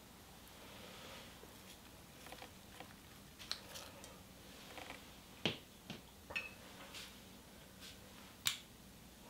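Light clicks and taps of a wooden spoon against a small ceramic bowl and the frying pan as chopped green onion is scraped into the pan. There are sharper taps about five and a half seconds in and near the end, and a short ringing clink in between.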